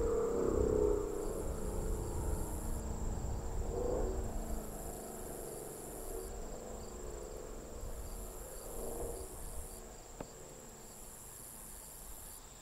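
2018 Ford F-150's 5.0 V8 through a Borla ATAK exhaust, fading into the distance as the truck drives away, rising briefly a few times as it goes. Insects buzz in long on-and-off pulses in the background.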